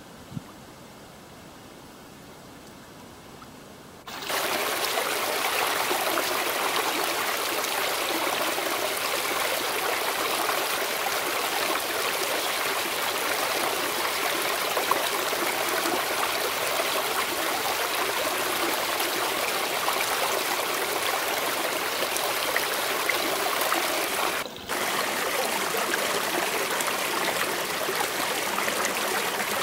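Shallow spring-fed creek running over rocks and under ice-crusted logs, a steady rush of flowing water. It is quiet for the first few seconds, turns loud and steady about four seconds in, and drops out for a moment near the end.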